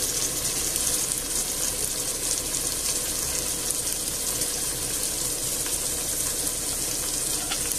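Chopped onion, garlic and red pepper with tomato sauce sizzling steadily in olive oil in a stainless steel pot.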